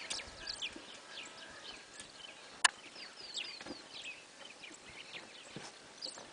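Many small birds chirping, a dense chatter of short, quick downward-slurred calls, with a single sharp click about two and a half seconds in as the loudest sound.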